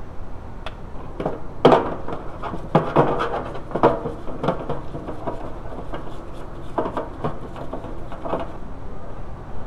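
Irregular knocks and clatter of a metal shifter bracket being handled and scrubbed with a brush in a solvent parts-washer sink, over a steady low hum.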